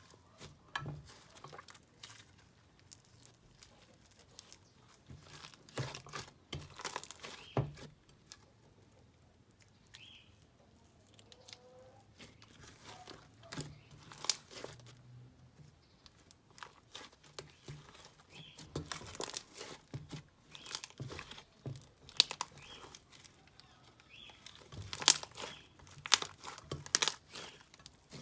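Slime being squished, folded and stretched by hand, giving irregular sticky crackles and small pops, with denser clusters now and then.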